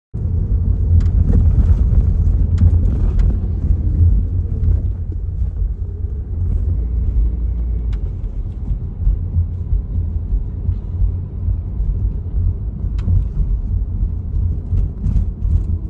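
2005 Toyota Prius driving, with steady low road rumble and a few sharp clicks or pops scattered through it. The clicks come from the front strut mounts on freshly fitted KYB Strut-Plus struts, which the owner hears on the driver's side.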